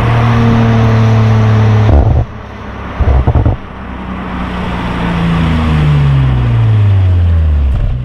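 Audi RS5 Sportback's twin-turbo V6 engine and exhaust: held at steady revs, then a lift-off about two seconds in and a short loud burst a second later. It builds again and then falls steadily in pitch over the last few seconds.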